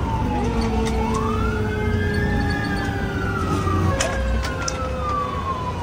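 Fire engine's wail siren heard from inside the cab, its pitch climbing slowly from about a second in, peaking, then sliding down, and starting to climb again at the end, over the steady rumble of the truck's engine.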